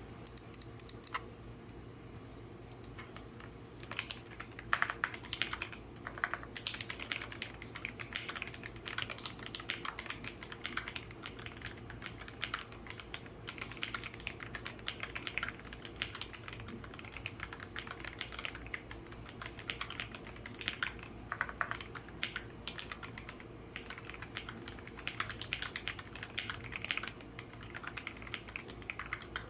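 Typing on a GMMK Pro mechanical keyboard with lubed and filmed Gateron Black Ink V2 linear switches, a polycarbonate plate and GMK keycaps: a stream of keystroke clacks, a few scattered presses at first, then continuous typing from about four seconds in.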